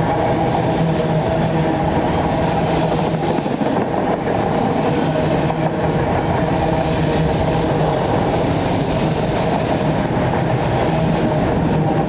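CSX autorack freight cars rolling past, a steady loud rumble of steel wheels on rail with a few sustained tones over it.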